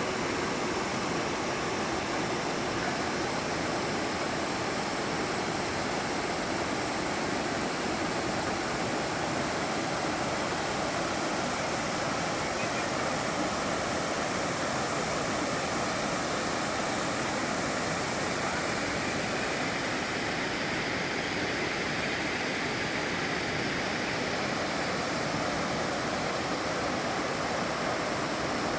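Flowing water rushing steadily, an even unbroken noise.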